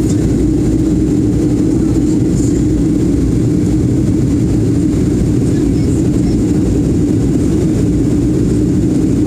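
Steady jet engine drone and rushing air heard inside an airliner cabin as it climbs out after takeoff. The sound is loud and even, mostly a low hum.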